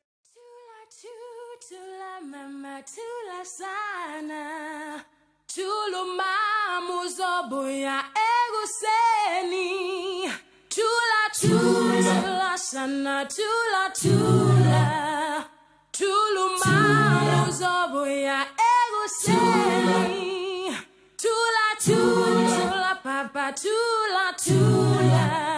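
A cappella vocal group singing a song: one voice carries the melody at first, and about five seconds in fuller group singing with low voices takes over.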